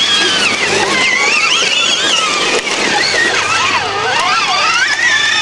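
Electric drive motors and gearboxes of a modified 4x4 Power Wheels Jeep whining as it drives, the pitch wavering up and down with speed and load over rough ground.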